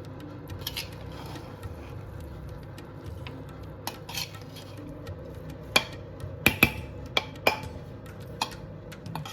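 A metal spoon clinking and scraping against a cooking pot, with scattered sharp clicks that come thickest about six to seven and a half seconds in, over a steady low hum.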